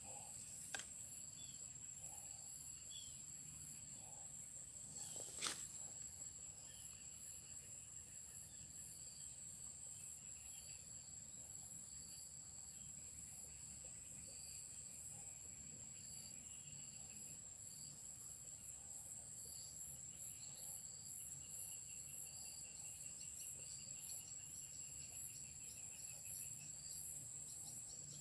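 Insects trilling steadily in a high-pitched chorus. There is one sharp knock about five seconds in.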